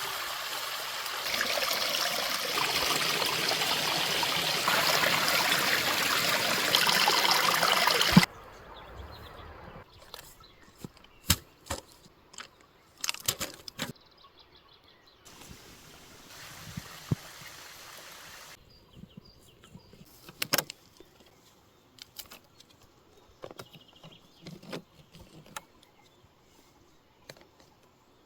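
Water running or rushing steadily for about eight seconds, growing louder, then cutting off suddenly with a click. It is followed by scattered light clicks and knocks of handling, and a short, fainter stretch of rushing midway.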